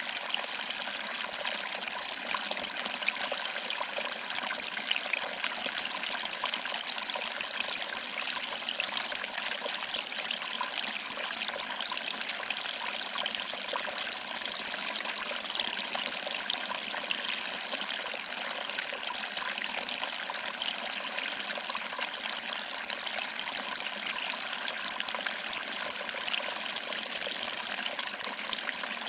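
Small waterfall trickling over rocks and splashing into a pool: a steady, even rush of water with fine splashy detail and little low rumble.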